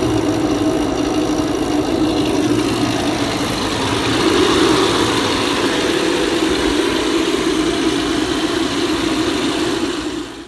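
Oil-sealed HVAC vacuum pump running steadily while evacuating a refrigeration system, with a constant hum; its oil is still outgassing refrigerant. The sound cuts off suddenly at the very end.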